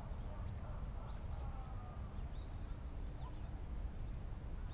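Open hillside ambience: light wind in the trees, a steady high chirring of crickets, and faint, far-off calls of "ho, ho, ho" about a second and a half in.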